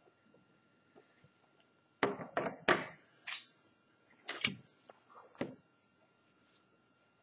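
Drawing instruments handled on a drawing board: a compass set down and a plastic set square picked up and laid on the paper. This gives two clusters of knocks and clatter, about two seconds in and again about four and a half seconds in.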